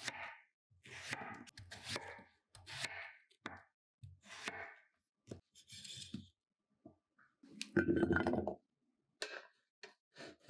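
Chef's knife chopping peeled potatoes on a wooden cutting board, about one cut a second for several strokes. Near the end, potato cubes tip from a dish onto a perforated metal steamer tray with a short clattering tumble, the loudest sound here.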